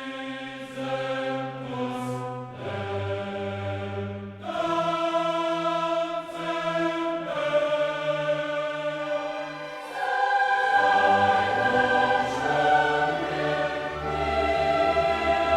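Choir and orchestra performing classical choral music in held, chord-like notes, growing louder about two-thirds of the way through.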